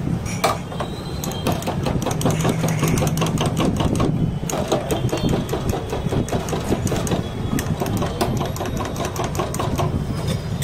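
Rapid clatter of a steel spoon and ladle against drinking glasses and a steel pot as cold coco is ladled and stirred, over a steady low rumble.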